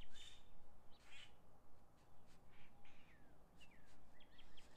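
Backyard birds calling faintly: a few short, scratchy calls and sliding down-slurred notes, with a rapid series of repeated chirps starting again near the end.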